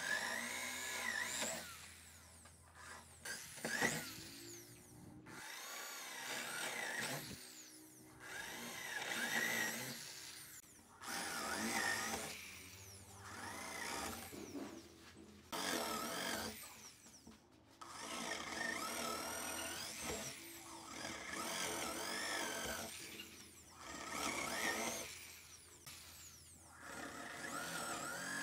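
Electric power tool, a drill-type tool, working wood in repeated bursts of one to three seconds with short pauses between, its pitch rising and falling as the load changes.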